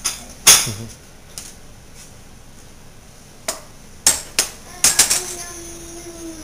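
Metal silverware clinking as pieces are dropped into a kitchen silverware drawer: one loud clink about half a second in, then a quick run of clinks past the middle.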